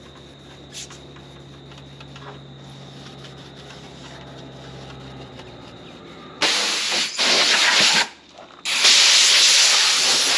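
A Scotch-Brite pad scuffing the painted window trim: a faint, steady rubbing. About six seconds in, a compressed-air blow gun hisses loudly in two long blasts, clearing the scuffing dust off the trim before it is painted.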